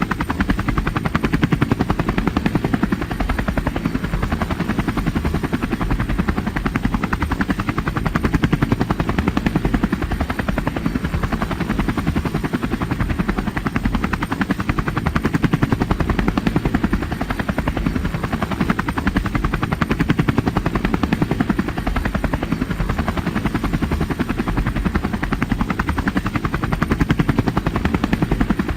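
Helicopter rotor blades chopping in a rapid, steady beat with a deep engine and rotor drone underneath.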